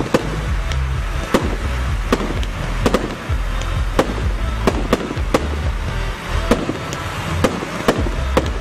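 Aerial fireworks shells launching and bursting in quick succession: a steady run of sharp bangs, about one or two a second, over music with a heavy bass.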